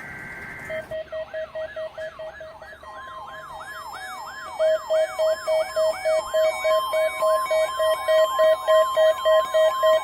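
NOAA weather radio receivers going off together for a warning alarm test: a warbling siren sweep repeating about four times a second and a pulsed beep about three times a second, after a short burst of steady data tones at the start. A few seconds in, the broadcast's steady warning alarm tone joins them.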